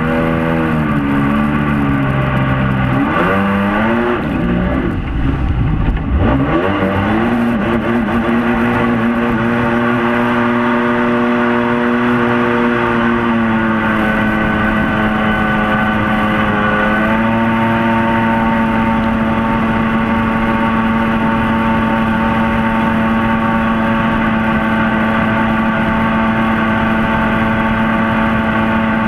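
Mini jet boat's engine running hard under way, with rushing water and wind. The engine pitch drops and climbs back a few times in the first six seconds as the throttle eases off and opens again, then holds at a steady high pitch, stepping up slightly twice.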